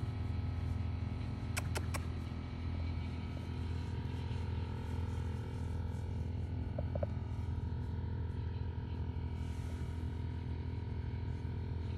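Steady low mechanical hum with several steady tones above it, and two sharp clicks close together about two seconds in.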